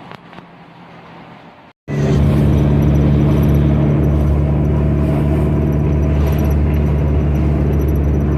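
VW Beetle's air-cooled flat-four engine running steadily and loud, starting abruptly at a cut about two seconds in; before the cut only a faint low hum.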